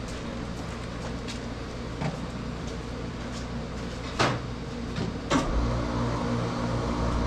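A steady low machine hum with a few clicks and two sharper knocks, about a second apart past the middle. Just after the second knock the hum gets louder and stays up.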